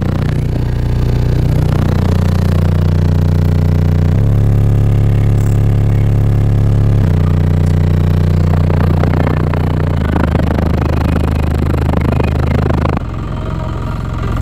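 Four RE Audio SXX 10-inch subwoofers in a car playing loud, deep bass notes, each held for two or three seconds before stepping to another pitch, with a drop in level near the end.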